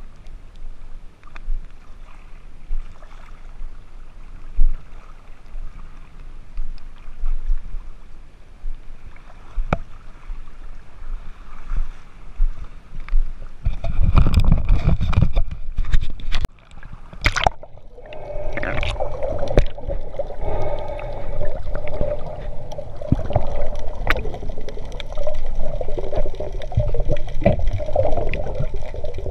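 Water sloshing and splashing around a snorkeler swimming at the surface. About 14 seconds in comes a loud rush of water as the camera goes under, and from then on the sound is muffled underwater noise with a steady, fluttering hum.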